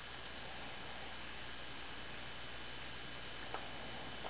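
Steady hiss with a low electrical hum, and a faint brief sound about three and a half seconds in.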